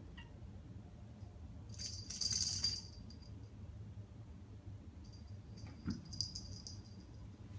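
A cat's collar jingling as she moves, in two spells: a short bright jingle about two seconds in, and a longer, patchier one from about five seconds in, with a soft knock in the middle of it.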